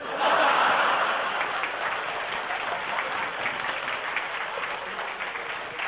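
Live audience applauding, loudest in the first second and then easing off gradually.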